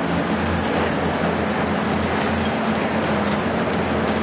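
Heavy demolition excavators' diesel engines running with a steady low hum, under a constant rattling, crunching noise of demolition work on the building.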